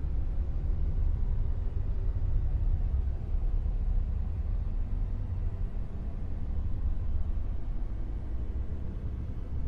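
Dark noise: a steady, deep rumbling hiss with its weight in the bass, wavering slightly in loudness, with no tone or rhythm.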